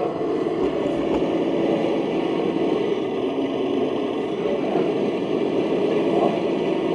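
RC model truck idling, a steady engine-like hum.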